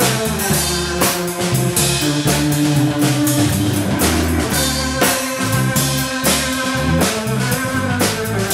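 Live instrumental trio playing: a drum kit with frequent cymbal and drum strokes, an electric bass guitar line, and held chords on an electric organ.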